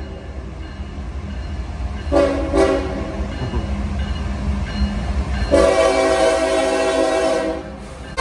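Air horn of an approaching CSX diesel freight locomotive, a short blast about two seconds in and a long blast from about five and a half seconds, over the steady low rumble of the oncoming train.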